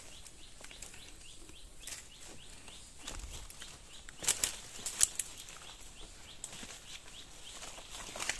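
Crackling and rustling of brush and loose stones underfoot as someone scrambles over jagged karst limestone, with a cluster of sharp cracks about four to five seconds in.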